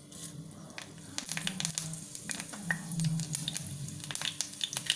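Tempering: cumin seeds, nigella seeds and curry leaves sizzling and crackling in hot oil, with rapid sharp pops and spits starting about a second in.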